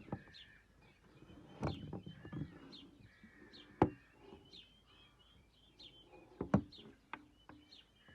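Small birds chirping over and over, with a few sharp knocks scattered through, the loudest about four seconds in and again about six and a half seconds in.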